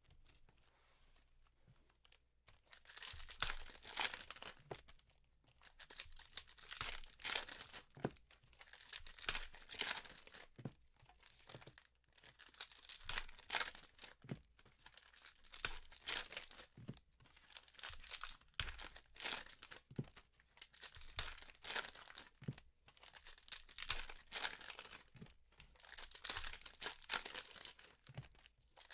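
Foil trading-card pack wrappers being torn open and crinkled by hand, in quick irregular bursts that start about three seconds in.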